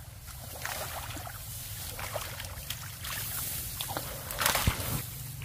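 Hands splashing and sloshing through shallow muddy water in a flooded rice paddy while feeling for fish, in uneven spells, loudest about four and a half seconds in.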